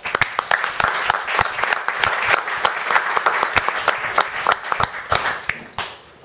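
Audience applauding: a dense patter of many hand claps that starts suddenly and dies away near the end.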